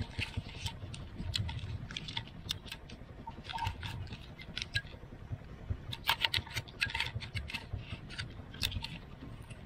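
A motorcycle rolling along a rough dirt road, heard from a microphone inside the rider's helmet: scattered irregular clicks and light rattles over a faint low rumble.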